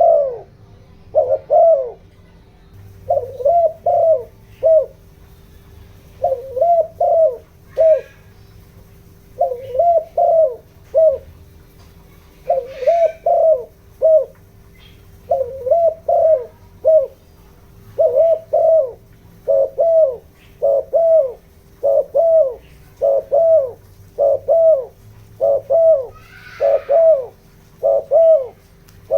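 Spotted dove cooing: phrases of three or four short coos, each falling in pitch, repeated about every three seconds and coming almost without pause in the second half. This is the rapid urging coo used as a decoy call to rouse wild doves. A few brief, higher chirps break in now and then.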